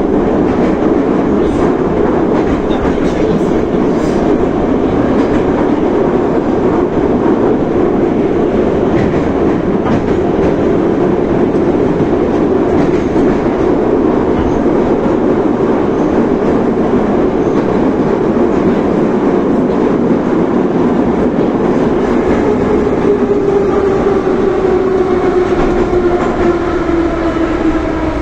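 Moscow Metro retro train "Sokolniki" running through the tunnel, heard from inside the car: a loud, steady rumble of wheels and running gear. In the last few seconds a whine of several tones rises out of it and slowly falls in pitch as the train slows.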